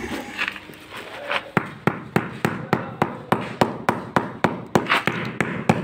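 Mallet striking a wooden block held against the edge of a large floor tile, knocking the tile inward into place. A steady run of sharp knocks, about three or four a second, begins about a second and a half in.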